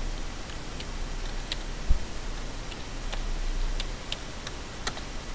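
Separate computer keyboard keystrokes, a few single clicks spaced irregularly, over a steady low hum and hiss. A single low thump about two seconds in.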